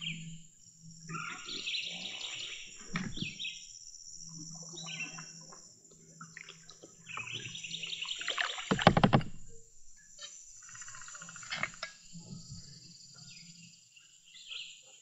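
Birds calling and trilling with a steady high insect drone, as a kayak glides along a wooded spring run. A single loud thump about nine seconds in.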